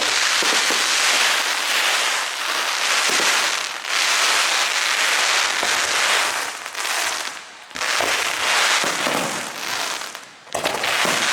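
Fireworks going off in a dense, continuous crackle, easing briefly about every three to four seconds before building again.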